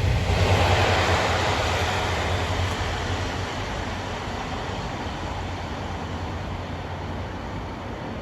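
A train running away after passing close by: a steady low engine hum and rail noise fading gradually.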